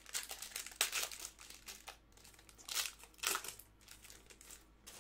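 Baseball card pack wrapper crinkling as hands tear it open and peel it off the cards: irregular rustling with louder bursts about a second in and again around three seconds, quieter near the end.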